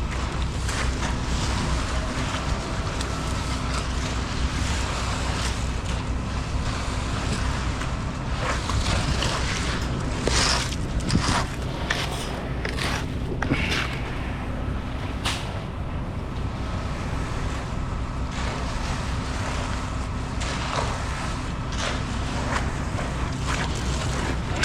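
Concrete mixer truck's diesel engine running steadily during the pour, with a cluster of short scrapes and knocks around the middle.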